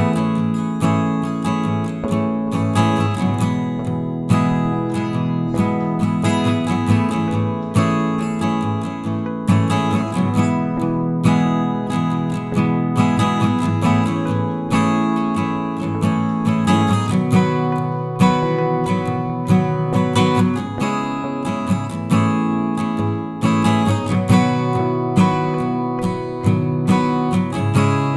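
Background music: strummed acoustic guitar with steady chords and a regular beat.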